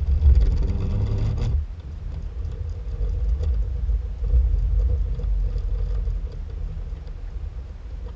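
Low, uneven rumble of wind buffeting the microphone on an open boat, stronger for the first second and a half and then easing off.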